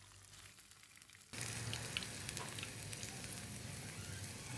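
Hot oil sizzling and crackling around breaded shrimp frying in a pan, starting abruptly about a second in and then running steadily.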